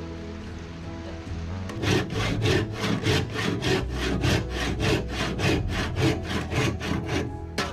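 Handsaw cutting a wooden strip with quick, even back-and-forth strokes, about four a second, starting about two seconds in and stopping just before the end. Background music runs underneath.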